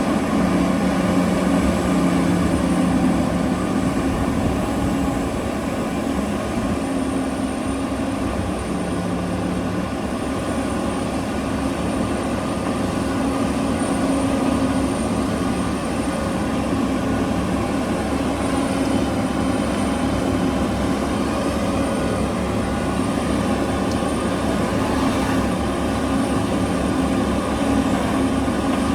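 Large diesel engines of heavy mining machinery, a hydraulic excavator and haul truck, running steadily: a continuous low engine drone with steady humming tones, a little louder in the first few seconds.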